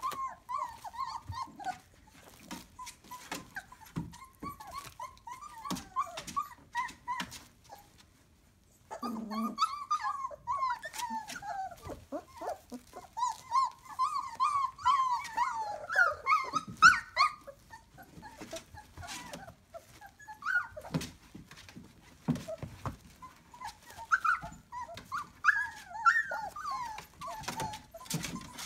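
Three-week-old borzoi puppies crying: many short, high calls that bend up and down in pitch, often overlapping, with scattered light clicks. The crying stops briefly about eight seconds in, then comes back louder and higher.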